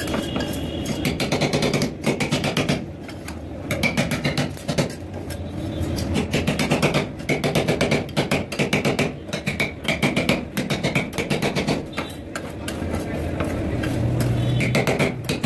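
Two metal spatulas chopping candy-coated chocolates into ice cream on a steel rolled-ice-cream cold plate. The blades strike the plate in rapid clacking runs, broken by short pauses.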